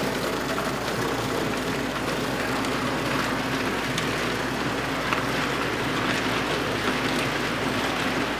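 Vintage American Flyer S-gauge electric model train running: the steam locomotive's motor whirring steadily as it hauls a long string of freight cars, the metal wheels rattling and ticking over the track.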